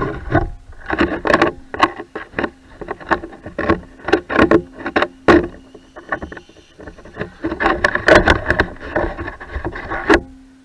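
Rapid, irregular knocks, scrapes and rustling close to the RC truck's onboard camera microphone as the truck is handled, with a faint steady hum from about a second in to past the middle.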